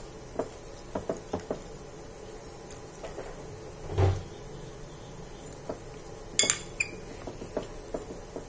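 A spoon knocking and clinking against a glass bowl while scooping out pieces of marinated fish, in scattered short clicks. There is a duller knock about four seconds in and a sharp clink at about six and a half seconds, the loudest.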